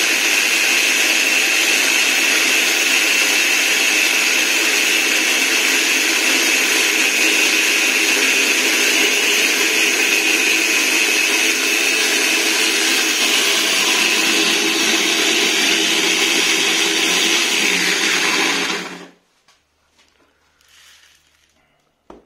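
Angle grinder driving a homemade grain crusher, running steadily with a high whine as grain feeds down from the bottle hopper until the hopper runs empty. The motor then stops suddenly, and a faint brief knock follows near the end.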